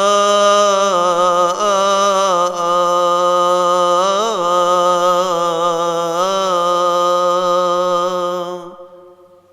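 A male deacon chants a long melismatic phrase of a Coptic Orthodox hymn solo, holding one vowel with small ornamental turns of pitch. The note fades out near the end.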